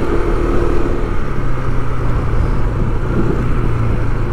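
Motor vehicle engine running steadily amid street traffic noise, with a higher tone that fades out about a second in.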